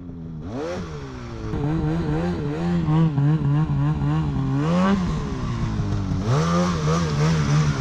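Two-stroke snowmobile engine revved in quick throttle pulses as the sled is worked through deep, loose snow. The pitch rises and falls several times a second, sags briefly about five seconds in, then picks back up.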